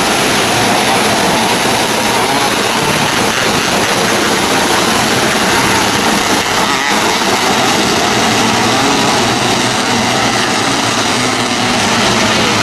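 A field of 270-class micro sprint cars racing on a dirt oval, their engines running together in a loud, steady blur of engine noise.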